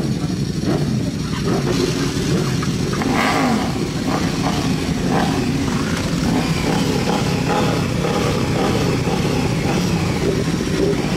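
Several motorcycle engines running together, with revving that rises and falls in pitch a few seconds in.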